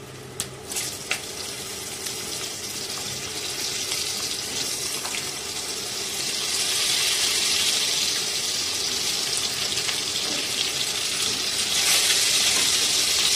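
Potato wedges sizzling in hot oil with frying kalonji seeds, as a steady hiss that grows louder as more wedges go into the kadai. There are a few sharp clicks in the first second, and the sizzle swells about six seconds in and again near the end.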